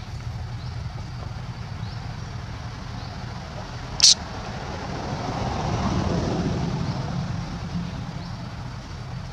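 A motor vehicle passing, its sound swelling and then fading over a few seconds, over a steady low traffic rumble. A single short, high-pitched squeak about four seconds in.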